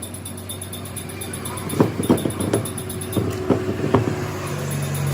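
About six sharp knocks on metal in just over two seconds, some leaving a short ringing tone, over a steady electrical hum.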